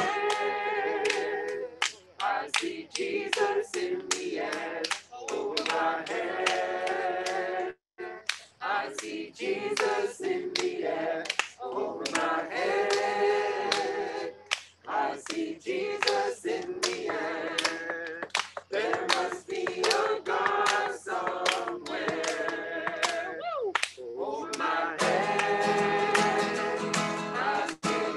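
Voices singing a worship song to a strummed acoustic guitar.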